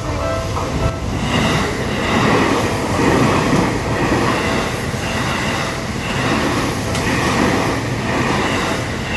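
A level-crossing bell rings its repeating clang. About a second in, a Seibu Ikebukuro Line electric commuter train runs through the crossing, and its loud wheel rumble and clatter, swelling and easing about once a second, cover the bell.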